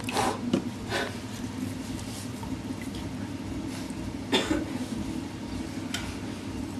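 Steady low hum under a few short coughs, near the start and again about four and a half seconds in.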